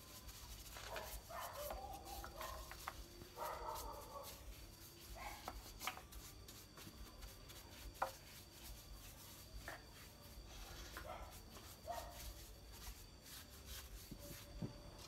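Faint, short animal calls, several in the first four seconds and a few more about eleven to twelve seconds in, with a few single light knocks in between.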